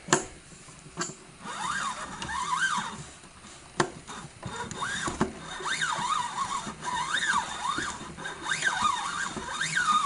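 Casdon toy Hoover Electron 1100 washing machine running with its drum turning: a whine that sweeps up and down in pitch about once a second, with a few sharp clicks in the first four seconds.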